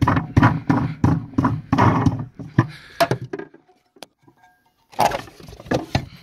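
The spare tire is being taken out of a car trunk. A fast run of rattling clicks comes first, then a pause, then a few thumps near the end.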